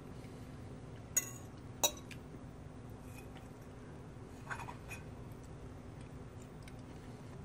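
Metal fork clinking on a ceramic dinner plate: two sharp clinks a little over a second in, then softer taps and scrapes about four and a half seconds in, over a steady low hum.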